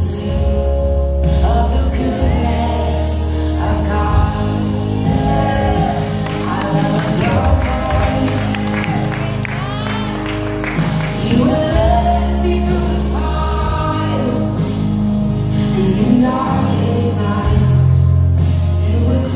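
Gospel worship song: voices singing a slow melody over held bass notes.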